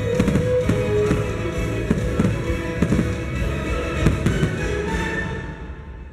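Aerial fireworks shells bursting in rapid succession, many sharp bangs over the show's music; the bangs thin out and the sound drops away in the last second.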